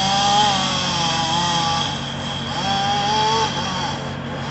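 Chainsaw running under load as it cuts through the tree, its engine pitch wavering and dipping as the cut goes on.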